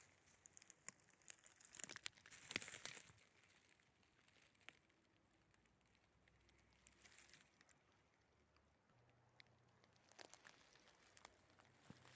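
Faint footsteps crunching and crackling on dry forest-floor litter, a run of steps in the first few seconds, then mostly quiet with a few scattered crackles.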